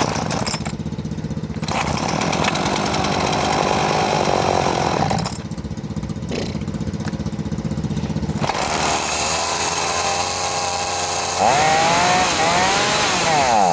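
Homelite two-stroke chainsaw running on partial choke and being revved in bursts: loud from about two seconds in, easing briefly, then revving again with the engine pitch swinging up and down several times near the end. A steadier engine note runs underneath.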